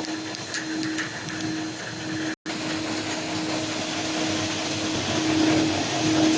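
Triple-layer dishwasher tablet press running: a steady mechanical hum and hiss, with a tone that pulses on and off a little under twice a second. About two and a half seconds in, the sound drops out for an instant, then the tone runs steadily and grows louder near the end.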